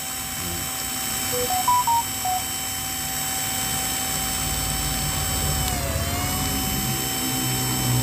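Electric drill running continuously, spinning a scooter clutch bell while a blade held in locking pliers scrapes a groove into its inner steel surface. There are a few short squeaky tones about a second and a half in, and the drill's whine sags briefly in pitch and recovers about six seconds in.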